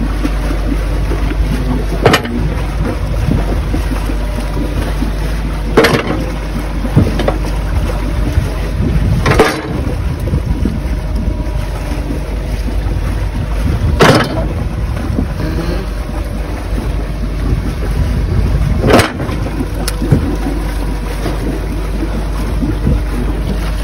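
Steady low rumble of wind buffeting the microphone, with five sharp knocks a few seconds apart.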